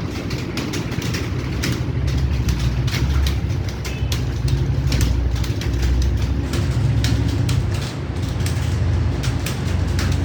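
Many computer keyboards clattering at once as several people type fast, in dense irregular key clicks, over a low steady rumble.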